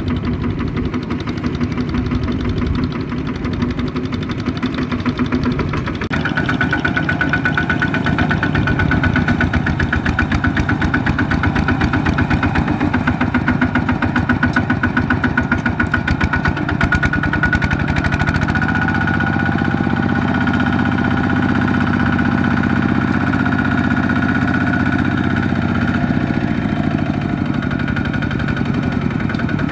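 Two-wheel walking tractor's single-cylinder diesel engine running with a fast, even chugging beat as it drives the trailer through a muddy rut. The sound changes about six seconds in, and from about eighteen to twenty-six seconds the engine holds a heavier, steady low pitch under load.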